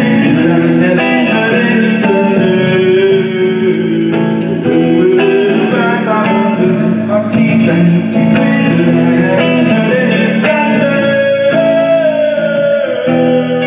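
Live performance of a guitar-led song, with a voice singing over the guitar.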